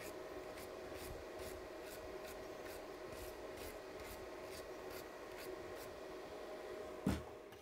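A small brush scrubbing the nozzle tip of a Multiplaz plasma torch in short, faint scraping strokes, about three or four a second, over a steady low hum. A dull knock near the end.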